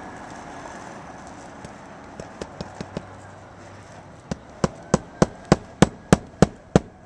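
Hammer driving a roofing nail into an asphalt shingle: a few light taps to start the nail about two seconds in, then sharp, evenly spaced blows about three a second from about four seconds in.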